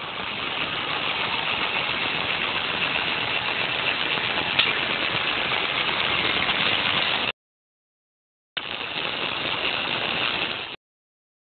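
Stepper-driven Y axis of a homemade CNC machine running with a steady mechanical whirr, stopping abruptly after about seven seconds, then running again for about two seconds near the end.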